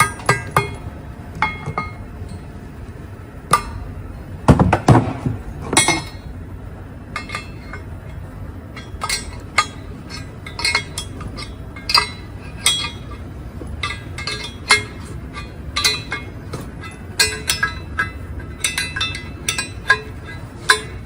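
Irregular metallic clinks and taps of a steel fitting tool against the cast caliper housing as a rubber boot is worked into place, with a heavier knock about four to five seconds in.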